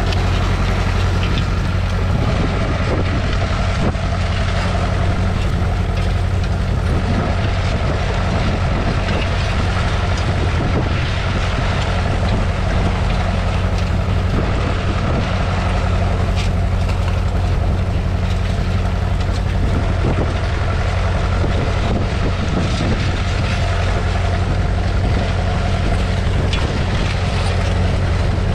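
1969 McCormick 434's 2.5-litre four-cylinder diesel engine running steadily at an even pitch and level.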